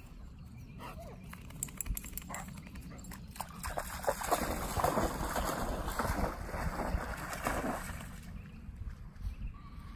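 Black Labradors playing in a river: a few short dog sounds in the first couple of seconds, then about four seconds of loud splashing water in the middle as a dog moves through the shallows. A steady low rush of the flowing river runs underneath.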